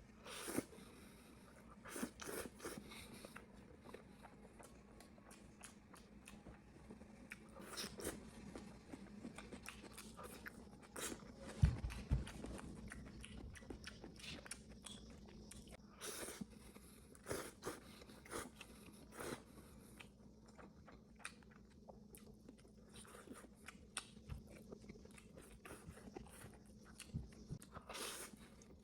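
A person eating noodles: irregular chewing and wet mouth clicks and smacks. A louder thump comes about twelve seconds in.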